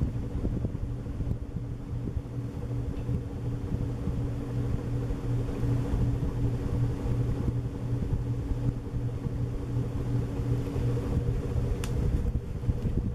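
Sanyo ceiling fan from the early 1980s running at full speed, about 165 RPM, with a steady electric motor hum. Air pushed by its four wooden blades buffets the microphone.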